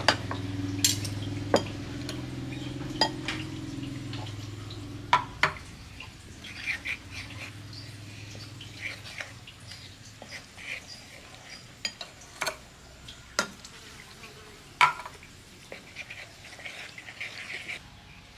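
A knife clicking on a wooden cutting board as luffa is sliced, then a metal spoon stirring flour in a ceramic bowl, with scattered sharp clinks and light scraping taps. A low hum in the background fades out over the first few seconds.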